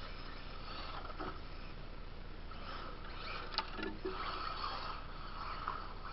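Electric RC buggies running on a dirt track: motor and tyre noise that swells as one buggy passes close, about three to five seconds in. A sharp knock, the loudest sound, comes in the middle of that pass.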